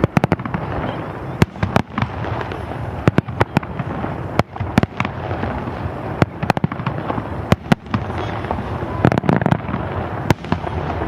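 Aerial fireworks shells bursting: sharp bangs, often two or three close together, about every second or so, with their reports echoing back off the mountains.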